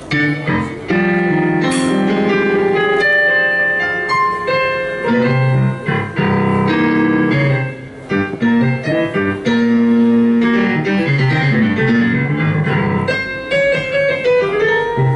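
Live jazz band playing, with electric keyboard to the fore in piano-like chords and melodic runs over electric bass, electric guitar and a drum kit.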